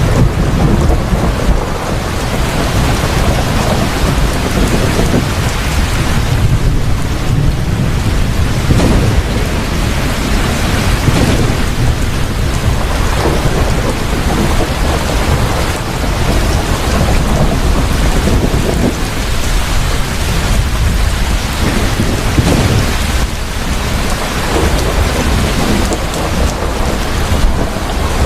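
Heavy rain pouring steadily during a thunderstorm, with a continuous low rumble of thunder under the hiss of the rain.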